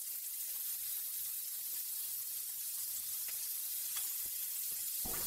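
Lamb chops sizzling steadily on a very hot ridged grill pan. A couple of light clicks come from metal tongs turning a chop, about three and four seconds in.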